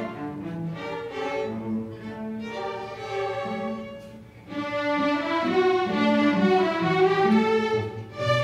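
String orchestra playing a passage of held notes. It softens about four seconds in, then comes back fuller and louder.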